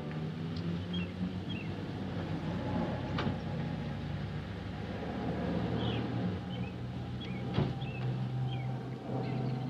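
A large saloon car's engine running low and steady as the car pulls up and idles, with small birds chirping. Two sharp clicks stand out, the louder one about three-quarters of the way through.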